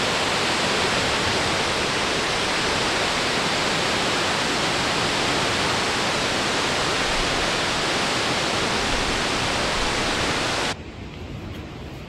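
Wallaman Falls, a tall single-drop waterfall, plunging onto the rocks and pool at its base: a steady, dense rush of falling water and spray. It cuts off suddenly near the end, leaving a much quieter hiss.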